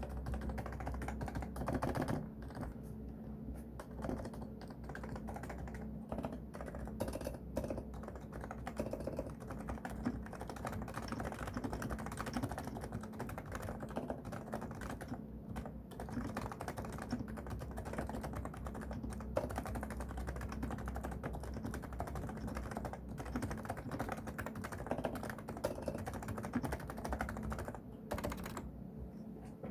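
Continuous fast typing on a Realforce R2SA silent keyboard with 45 g Topre electro-capacitive switches, a dense run of soft, damped key strokes.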